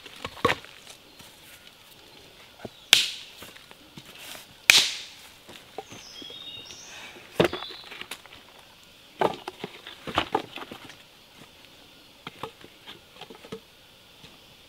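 Dead wooden branches and log sections knocking against each other as they are handled and set down on a pile: a series of dry wooden knocks, the loudest two about three and five seconds in. Insects buzz steadily throughout, and a bird chirps briefly in the middle.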